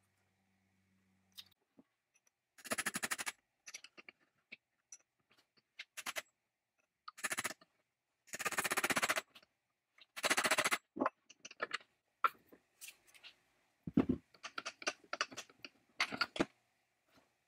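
Several short runs of rapid metal tapping and rattling as a hammer drives a punch through the electric chainsaw motor's end bell. Later comes a single dull thump, then a scatter of small clicks and scrapes.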